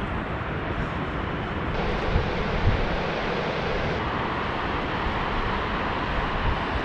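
Wind buffeting the camera microphone: a steady rush of noise with gusty low rumbles, strongest in two short gusts about two to three seconds in.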